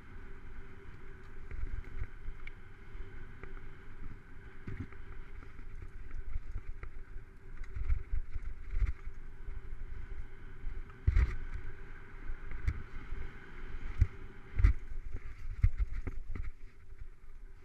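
Mountain bike ridden fast over a dirt singletrack, heard through a camera mounted on the handlebars: a steady rumble and rattle of tyres and frame over the ground, with sharp knocks over bumps, several louder ones in the second half.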